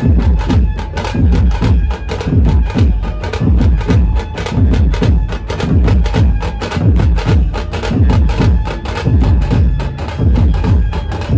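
A dhumal band playing loud music without singing: a fast, dense run of sharp percussion strokes over a heavy bass drum.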